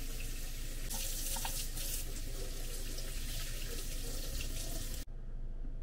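Kitchen tap running into a sink: a steady rush of water that stops abruptly about five seconds in.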